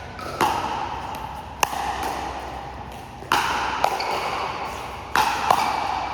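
Pickleball rally: plastic balls struck by paddles, about six sharp pocks with a brief ringing after each, the stronger ones about one to two seconds apart.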